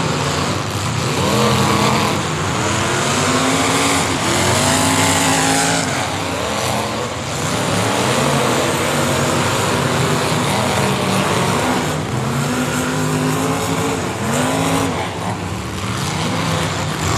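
Engines of several full-size race cars on a dirt figure-8 track, revving up and falling back again and again as the cars accelerate and lift, with a loud, continuous din of engines and tyres.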